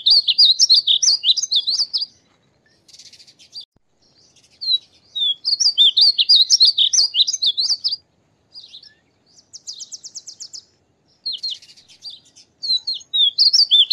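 Painted bunting singing: three quick, high warbling song phrases of two to three seconds each, with softer single notes and a brief buzzy trill in the gaps between them.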